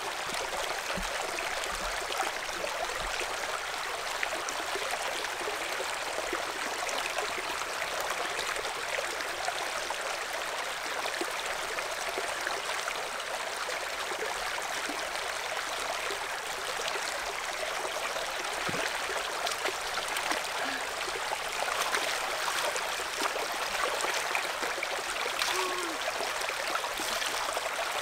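Shallow stream running over rocks, a steady rush of water that grows a little louder near the end.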